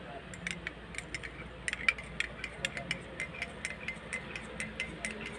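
Spoon stirring coffee in a ceramic mug, clinking against the inside of the mug in quick light clinks, several a second.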